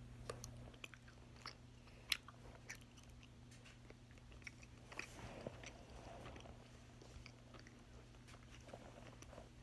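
Faint biting and chewing on a strawberry Twizzler licorice twist: scattered soft mouth clicks, the sharpest about two seconds in, over a faint low hum.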